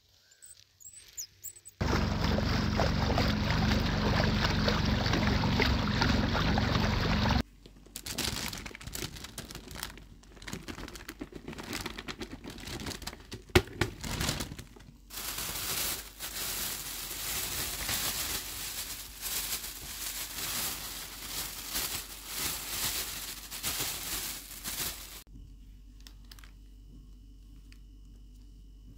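A loud steady drone with a low hum for a few seconds. Then a long stretch of crinkling plastic bag and rustling as a heap of chanterelle mushrooms is tipped out and handled, with scattered clicks. It ends in a quiet hum.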